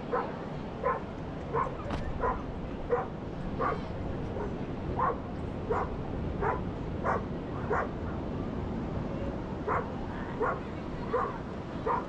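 A dog barking over and over, about three barks every two seconds, stopping for a second or two past the middle and then going on again, over the steady noise of ocean surf.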